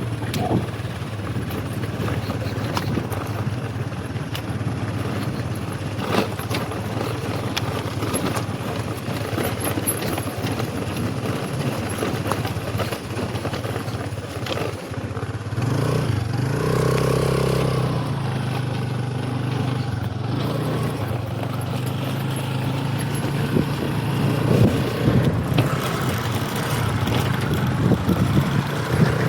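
Honda Activa scooter engine running at a steady drone, growing louder for a few seconds around the middle.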